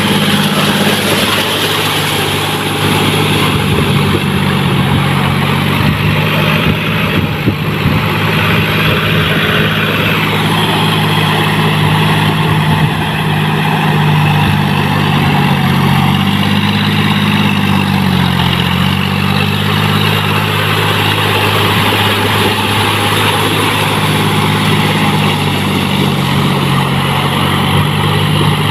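John Deere 5045D tractor's three-cylinder diesel engine running steadily under load as it drives on cage wheels through deep paddy-field mud, its pitch dipping and rising briefly about two-thirds of the way through.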